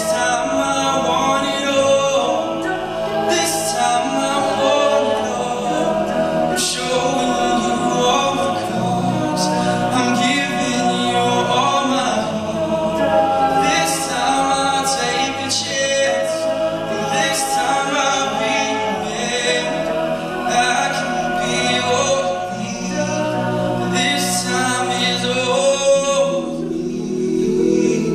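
All-male a cappella group singing a pop song in close harmony, a lead voice over sung backing parts, with no instruments.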